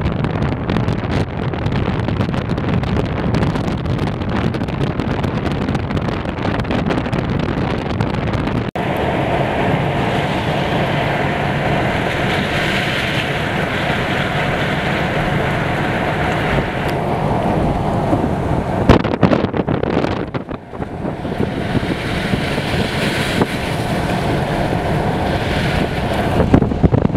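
Strong storm wind buffeting the microphone: a loud, steady rush of wind noise that changes abruptly about a third of the way through. A few sharp knocks come about two-thirds of the way in.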